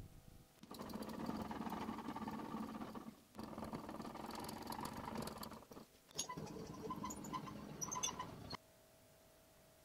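Homemade table saw's blade-tilt mechanism being cranked round by a threaded rod turned with locking pliers: scraping, rattling metal in three runs of a couple of seconds each, with light clicks through the last.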